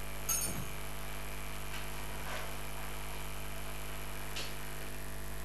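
Steady electrical mains hum, with a brief clink and rustle a moment in as a handbag with a chain strap is picked up off a fabric sofa.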